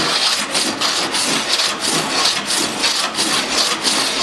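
A metal body file drawn back and forth across a steel car door panel, rasping at about three strokes a second.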